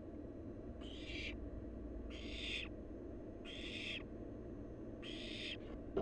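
Barn owl nestling giving four harsh hissing calls, each about half a second long and spaced evenly about a second and a half apart: the hissing 'snore' that barn owl chicks use to beg for food. A steady low hum from the nest-box camera runs underneath.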